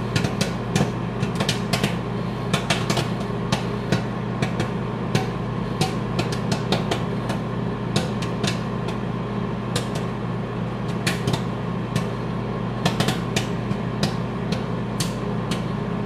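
Galanz microwave oven running with a steady hum while popcorn kernels pop inside the paper bag: irregular sharp pops, several a second, near the end of the cook.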